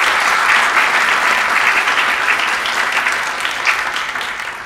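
Audience applauding, a dense even clapping that begins to thin out near the end.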